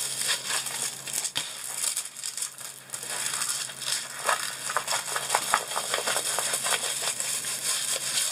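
Crinkling and crackling of a diamond painting canvas in a clear plastic sleeve as it is rolled by hand, a dense run of quick, irregular clicks. A faint steady hum sits underneath.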